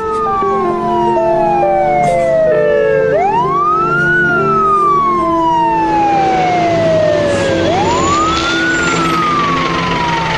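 Ambulance siren wailing, each cycle rising quickly and then falling slowly, repeating about every four and a half seconds over soft background music.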